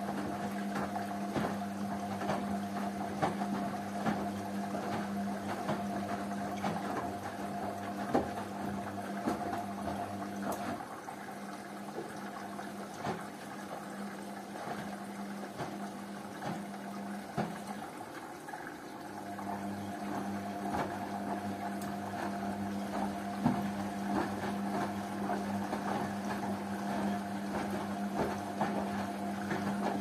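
Two front-loading washing machines, a Hotpoint Ariston and a Rainford, running their wash cycles: a steady motor hum over water sloshing, with frequent small knocks from the laundry tumbling in the drums. The hum stops about eleven seconds in and resumes some eight seconds later.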